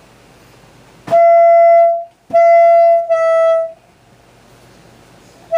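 Video doorbell set's indoor monitor loudly playing its electronic chime: one long beep about a second in, then a two-note chime whose second note is slightly lower, each note opening with a click.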